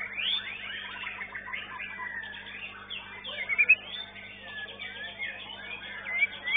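Several caged songbirds singing at once: rapid, overlapping whistled glides and trills with no pause, over a steady low hum.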